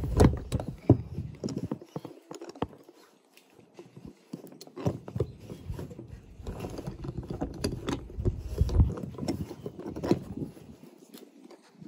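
Irregular knocks, clicks and scraping as a plastic polypipe connector is twisted by hand onto the threaded tail of a new float valve on a water tank, with low rumbling handling noise.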